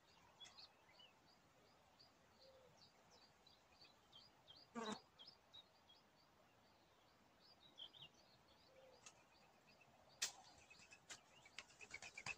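Faint songbird chirping in the background: quick high chirps, about three a second, pausing partway through and then resuming. Two short, sharper sounds come through about five and ten seconds in.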